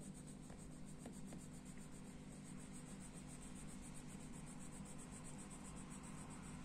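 Faint scratching of a red coloured pencil shading paper in a colouring book, in quick, evenly repeated strokes.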